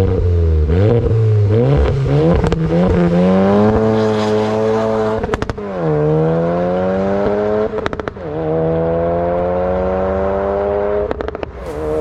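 Tuned Audi S1 Sportback's 2.0 TFSI turbo four-cylinder launching hard: the revs bounce up and down at first, then climb steadily through three upshifts. Each shift is marked by a short burst of exhaust crackles and pops.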